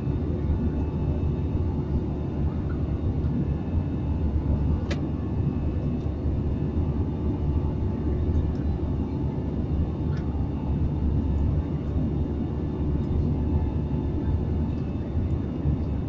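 Steady drone of an airliner's engines and airflow heard inside the passenger cabin during the climb after take-off. A single faint click about five seconds in.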